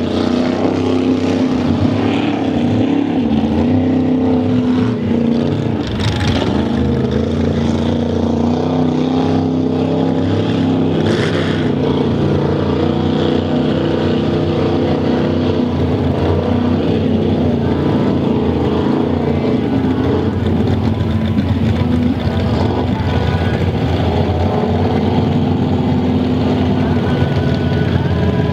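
Big-block V8 of a Ford Bronco mud truck running at high revs, its pitch rising and falling with the throttle, as it ploughs through a deep mud and water pit.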